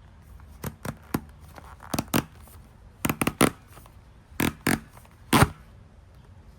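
Hands unpacking a shipping box: a series of sharp clicks and knocks, some in quick runs, with faint rustling of packaging between them.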